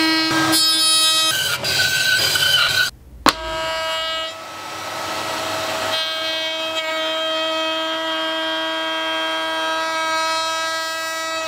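Router table running at speed, a steady high whine, as its flush-trim bit trims the edges of a glued hardwood frame; the rushing of the cut grows louder about four to six seconds in. A brief break and a sharp click come about three seconds in.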